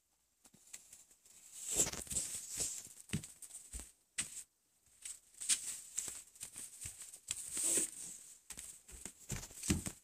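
Irregular clicking, tapping and rustling of small objects being handled, with occasional dull knocks.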